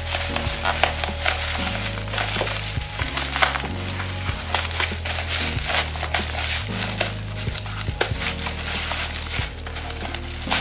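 Plastic courier wrapping and bubble wrap crinkling and crackling as a parcel is pulled open by hand, with many quick sharp crackles.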